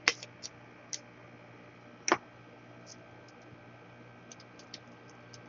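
A few sharp clicks, the loudest about two seconds in, with faint light ticks later: small tools and parts handled at a repair bench.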